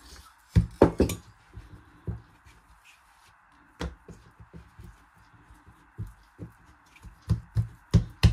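Rolling pin knocking on dough and a silicone baking mat, a few sharp knocks about half a second to a second in, then soft taps and pats as hands stretch and flatten the dough, with a cluster of louder knocks near the end.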